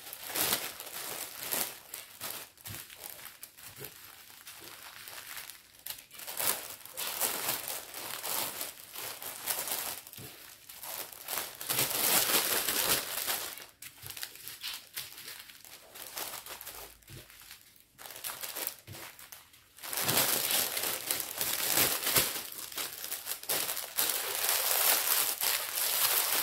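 Diamond painting kit packaging crinkling and rustling as it is handled and put away, with louder stretches about halfway through and over the last six seconds.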